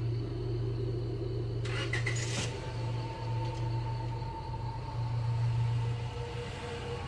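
A car engine starting up about two seconds in and then running, over a low steady rumble.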